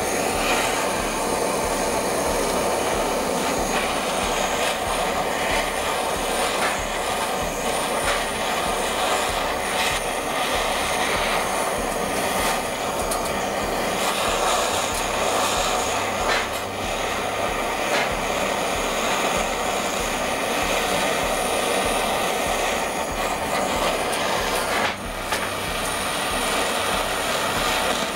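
Handheld gas-cartridge torch burning with a steady hiss, its flame heating a steel pulley's hub for a hot fit onto a motor shaft; the hiss dips briefly once near the end.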